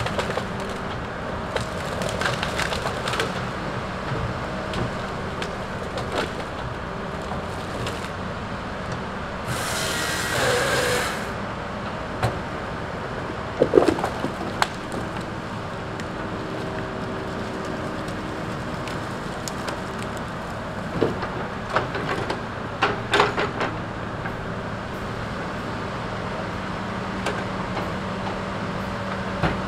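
Tigercat knuckleboom loader's diesel engine running steadily while its grapple handles tree-length pine stems, with wood knocking and cracking. The loudest knocks come about fourteen seconds in and again in a cluster a few seconds past twenty, with a brief rushing noise about ten seconds in.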